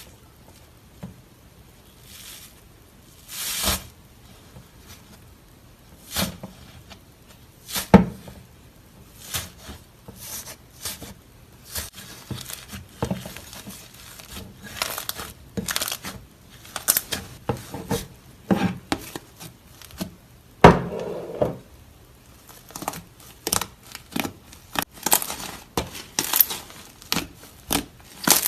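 Slime being squished, poked and stretched by hand, giving irregular crackles and sharp pops as air pockets burst. The pops come thicker toward the end.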